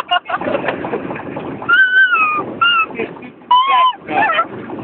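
Young people's voices making high, drawn-out nonsense noises that bend in pitch, a long one about two seconds in and several shorter ones after, over a lower jumble of voices.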